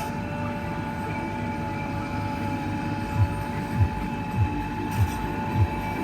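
JCB 3DX backhoe loader's diesel engine running, with a steady whine. From about halfway, a regular low thump comes about every 0.6 seconds.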